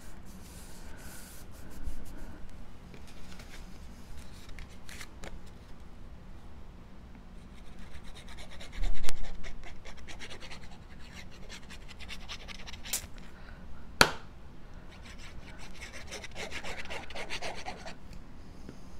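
Hands rubbing and pressing cardstock pieces flat to glue them down, with the paper rustling and scraping. There is a thump about nine seconds in and a sharp click about fourteen seconds in.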